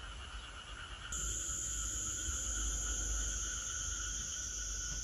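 Steady summer chorus of insects and frogs trilling without a break, with a higher, steady insect buzz joining about a second in.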